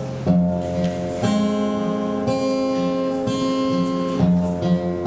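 Instrumental music: acoustic guitar strumming sustained chords, the chord changing about once a second.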